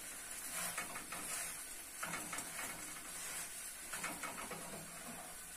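Wooden spatula scraping and tapping against a frying pan as a thin batter pancake cooks. A few faint scrapes and taps come in short clusters.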